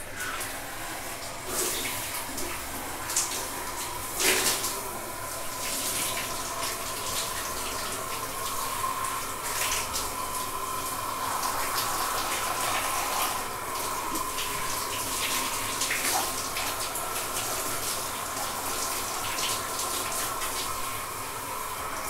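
Shower water running steadily and splashing, with irregular louder splashes, the loudest about four seconds in.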